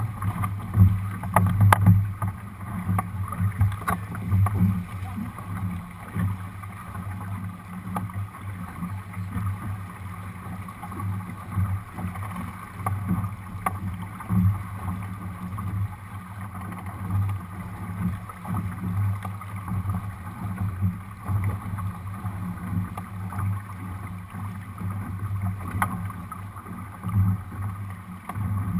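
Water rushing along the hull of a Lightning sailboat under way, with wind buffeting the deck-mounted camera's microphone in an uneven rumble. A few sharp knocks from the boat's rigging or hull come near the start.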